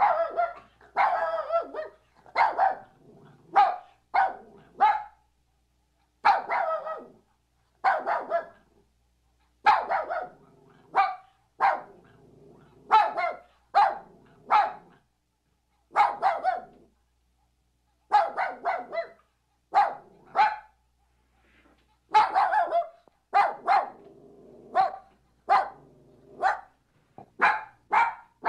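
A dog barking over and over, short barks coming in quick runs of two to five with brief pauses between the runs.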